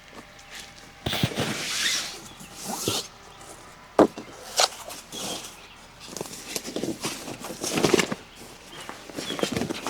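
Irregular rustling and handling noises, possibly footsteps, with a sharp knock about four seconds in.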